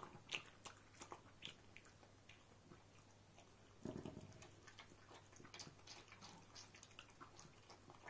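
Dog eating from a plate on the floor: faint, irregular wet lapping and chewing clicks, with a soft bump about four seconds in.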